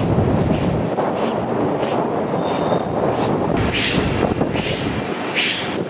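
Steam locomotive 25-026 running slowly, its exhaust beats coming as even hissing chuffs about three every two seconds over a steady low rumble of the running gear.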